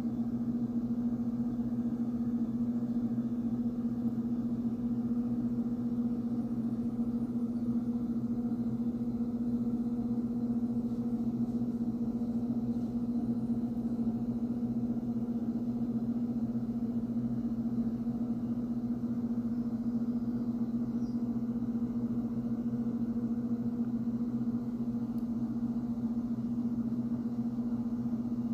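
A steady low hum on one pitch, with fainter overtones, unchanging throughout.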